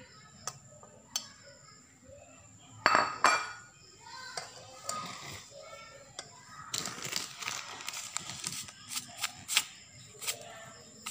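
Kitchen utensils clinking and knocking against a metal pan and bowl while batter ingredients are added: a few sharp clicks, a loud knock about three seconds in, then a busier stretch of clinks and scraping over the last few seconds.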